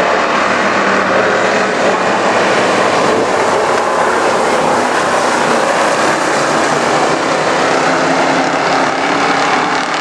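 A pack of street stock race cars racing on a dirt oval, their engines blending into one loud, steady drone.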